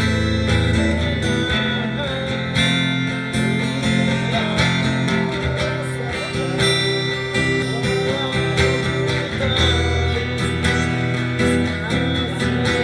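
Instrumental passage of a song: strummed acoustic guitar under a wavering melody line, with sustained low notes.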